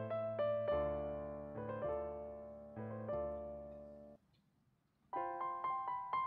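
Solo piano background music playing chords that ring and fade. It breaks off for about a second near the end, then starts again in a higher register.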